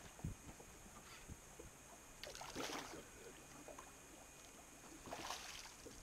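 A hooked rockfish (striped bass) splashing at the water's surface beside the boat: a few brief, quiet splashes.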